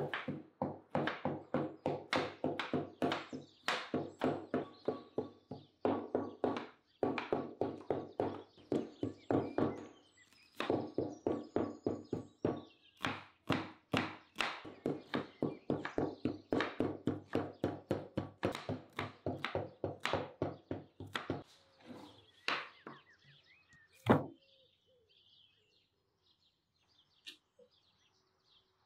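Kitchen knife chopping an onion on a wooden cutting board: quick, even strokes, about three or four a second, with short pauses. The chopping stops after about twenty seconds and is followed by one louder knock; faint bird chirps come near the end.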